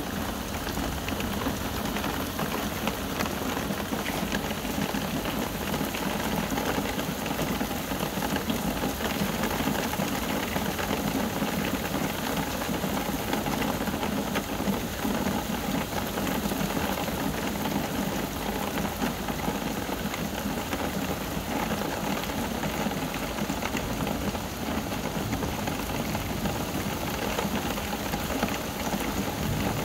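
Rain from a thunderstorm falling steadily and hitting surfaces, an even hiss without a distinct thunderclap.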